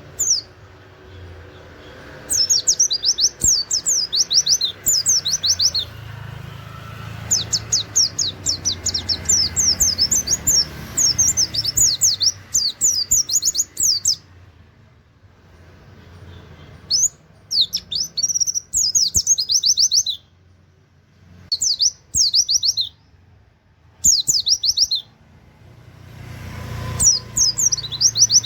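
White-eye (pleci) singing in rapid 'nembak' bursts of quick, high, down-slurred notes, the phrases lasting from one to several seconds with short pauses between them. A faint low rumble runs underneath.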